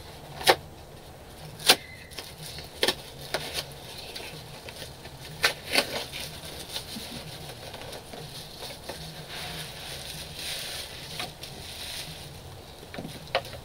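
A package being ripped open by hand: a run of sharp tearing snaps, then a stretch of paper packaging rustling.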